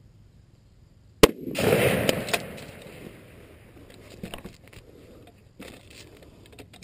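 A single precision rifle shot: a sharp crack about a second in, followed by a rolling echo that fades over a second or so.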